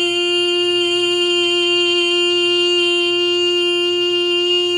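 A woman's voice sustaining the vowel of "me" on one steady note, F above middle C, held straight and level without vibrato or wavering: the sustained-pitch warm-up of Stemple's Vocal Function Exercises.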